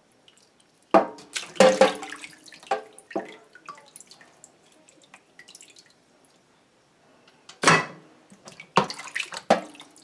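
Water splashing and dripping in a plastic bowl in a steel sink as whole fish are washed by hand, in irregular splashes with quiet spells between.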